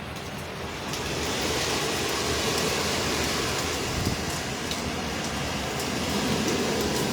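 Hurricane-force wind and rain blowing steadily, a gust swelling about a second in and holding.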